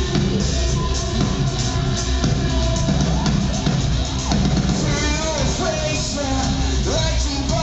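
Live band playing electronic-tinged rock, with synth keyboard, electric guitar and drum kit, and a man singing into the microphone over it.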